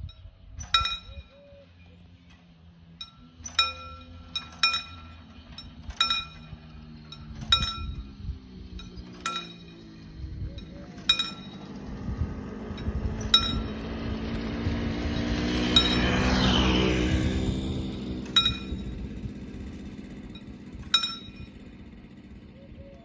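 Level-crossing warning bell striking single ringing dings at uneven intervals of one to two and a half seconds while the barriers come down. Under it a small engine, the moped's, swells as it passes and fades again, loudest about two-thirds of the way through.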